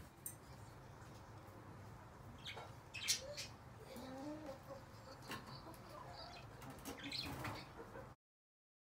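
Birds in an aviary: wing flutters, several sharp taps and a few short calls over a low steady hum. The sound cuts off suddenly near the end.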